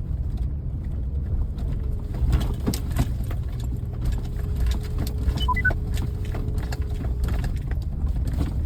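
Pickup truck driving slowly in four-wheel drive over snow-covered road, heard from inside the cab: a steady low engine and tyre rumble with frequent knocks and clicks as it rolls over the packed snow.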